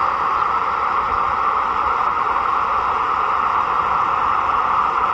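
Toshiba F11 analog shortwave portable giving a steady static hiss through its speaker on the 25 meter band, with no station coming through: the band is too noisy for anything.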